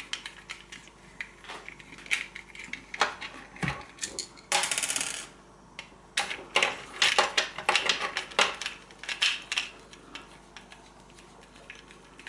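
Screwdriver working the screws out of the plastic microswitch holder inside an electric shower, with scattered clicks and taps of plastic and small metal parts. About four and a half seconds in there is a brief, fast rattle lasting under a second, followed by a busy run of clicks.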